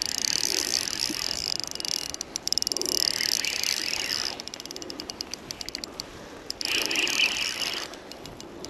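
Fishing reel ticking in quick runs of close, even clicks while a hooked trout is on the line, over a steady background hiss.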